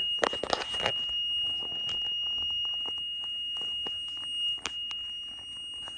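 Neulasta Onpro on-body injector sounding its error alarm, a steady high-pitched tone: the device has failed, with its needle bent. Handling clicks and rustles in the first second, and a sharp click a little past the middle.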